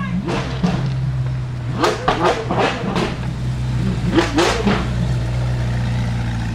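Zenvo TSR-S's twin-supercharged 5.8-litre flat-plane V8 idling with a steady low hum, blipped several times in quick succession about two seconds in and twice more about four seconds in.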